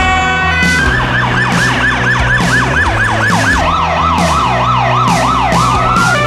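Emergency vehicle siren on a rapid yelp, switching about halfway through to a lower yelp, over background music.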